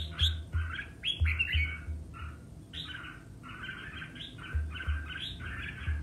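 Red-whiskered bulbul singing in quick bursts of rapid, chirpy notes, phrase after phrase. Low thumps are mixed in.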